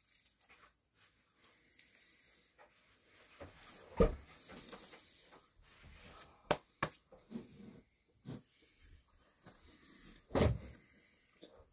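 Handling and movement noises from a person standing and handling her clothing and belly: dull thumps and sharp knocks with clothing rustle. The loudest thump comes about four seconds in, two quick knocks follow a couple of seconds later, and another thump comes near the end.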